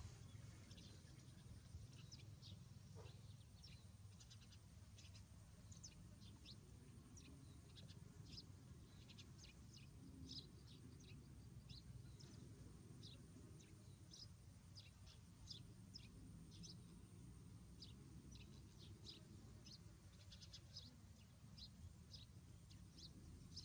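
Faint, quick, high-pitched animal chirps, one to a few a second, over a low steady background rumble.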